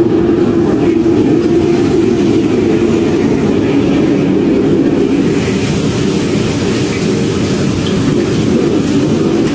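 Commercial wok range's gas burners and overhead extractor hood running: a steady low rumble.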